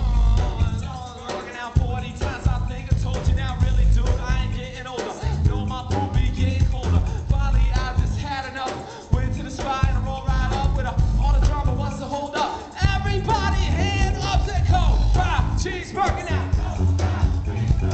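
Live hip-hop performance: a rapper's vocals over a band with heavy, pounding bass and drums.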